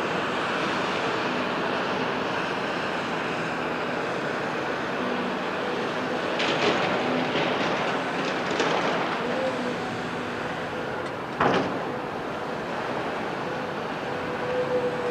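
CAT 374F L excavator's C15 ACERT diesel and hydraulics running steadily with a faint hum while the boom swings and the bucket lowers. A few clattering knocks come midway, and one sharp, loud knock comes about three-quarters of the way through.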